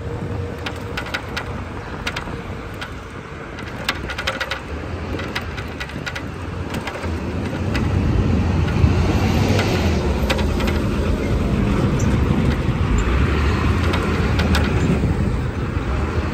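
Rumble of a bicycle rolling on a city street, with scattered rattling clicks from the bike over bumps. The rumble gets louder about halfway through.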